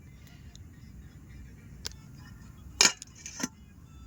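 A lid set onto a metal cooking pot: a few short metallic clinks, the loudest about three seconds in.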